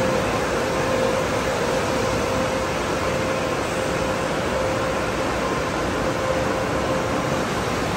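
Tunnel car wash machinery running: a steady rushing noise with a constant hum underneath, even in level throughout.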